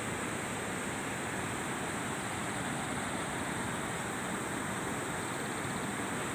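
Steady rush of water pouring over a small concrete weir, an even noise with no breaks.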